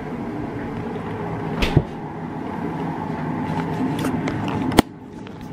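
Kitchen handling noise: a knock about a second and a half in and a sharp click near the end, over a steady background hum.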